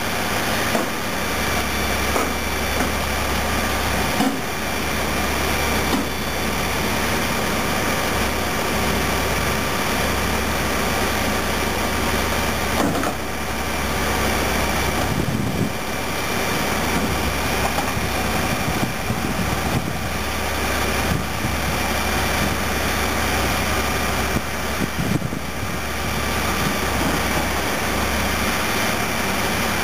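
Caterpillar D10T crawler dozer's C27 V12 diesel engine running as the machine crawls down off a lowboy trailer, with a steady high whine over the engine noise and a few knocks along the way.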